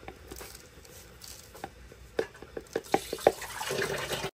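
Freshly ground chili flakes poured from a grinder jar into a plastic jar, with a series of light taps and knocks as the jars touch and are tapped. The knocks come faster and sharper after about two seconds.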